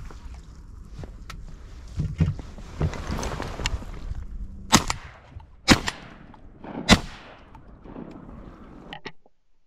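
Three shotgun shots about a second apart. Before them comes a couple of seconds of rustling.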